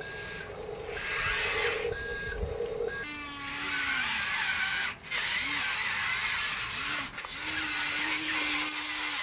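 Electric motors of radio-controlled Huina construction models whining, the pitch gliding down, then rising and falling in short spurts and holding steady near the end. A few short high beeps sound in the first three seconds.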